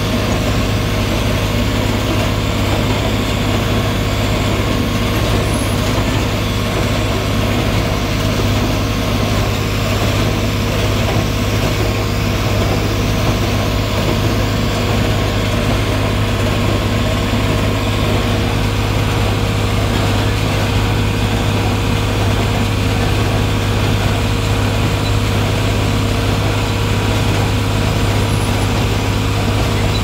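Tractor engine running steadily under load while powering a John Deere 327 small square baler baling hay, heard from inside the cab. The baler's machinery runs along with it under a constant low hum.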